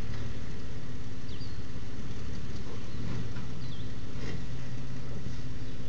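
Toyota FJ Cruiser's 4.0-litre V6 engine running at a steady low speed while the truck crawls up a rocky ledge.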